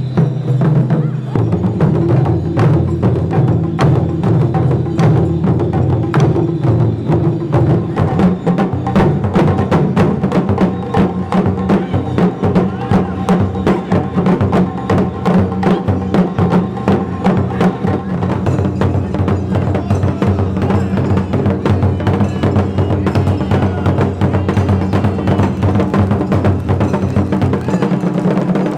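Music with dense, rapid percussion strikes over a held melody whose notes change every several seconds.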